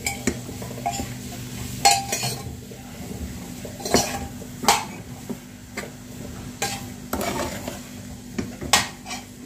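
A metal spoon scrapes and knocks against a frying pan as dry, crumbly besan zunka is stirred and turned over. The knocks come at uneven intervals about a second apart.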